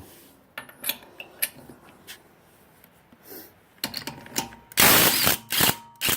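Scattered metallic clinks of sockets and lug nuts being handled, then a short loud burst from the Craftsman C3 half-inch cordless impact wrench about five seconds in, followed by two brief bursts near the end.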